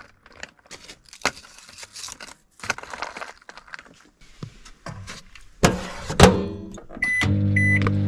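Grated cheese bag rustling as cheese is sprinkled onto tortilla chips, then two loud clunks as the microwave door is shut. Two short keypad beeps follow, and the microwave oven starts heating with a steady low hum.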